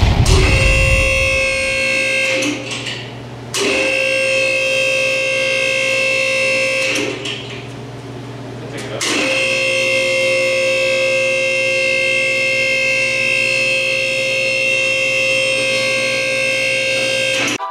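BendPak GrandPrix GP-7 two-post lift's electric hydraulic power unit, motor and pump, running with a steady high whine as it raises a car on its first powered test. It starts with a low thump and runs in three spells, stopping briefly twice, the last and longest running about eight seconds.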